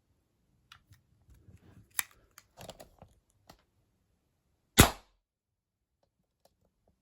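Webley Tempest .22 spring-piston air pistol being handled, with a few clicks and small metallic rattles, one sharper click about two seconds in. It is then fired once, a single sharp crack about five seconds in, the loudest sound here.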